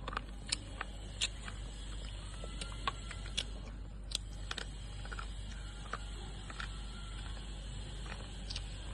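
Wet Sandeep-brand slate pencils being bitten and chewed: irregular sharp crunches and snaps, about ten of them, over a steady background hiss.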